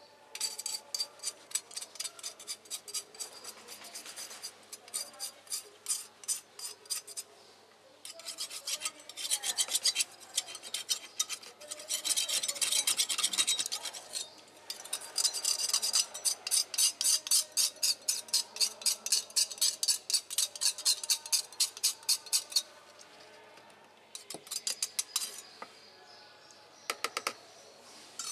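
Metal spoon scraping a blackened metal spoon, quick repeated rasping strokes in runs with short pauses, stripping off the dark deposit left by electrolysis.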